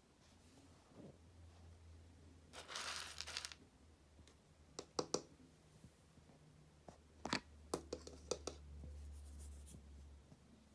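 Kitten eating from stainless steel bowls of dry kibble and wet food: faint scattered crunches and clicks, with a short rustle about three seconds in.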